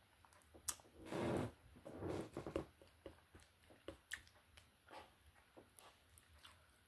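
A person chewing and eating with soft, wet mouth sounds, scattered with light clicks of a plastic spoon against a plastic food tray.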